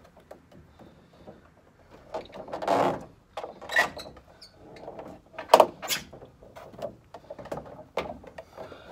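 Plastic fender flare being shifted and pressed against a pickup's body, its rubber edge scraping and rubbing on the paint, with several scrapes and a few sharp knocks and taps; the loudest knock is about five and a half seconds in.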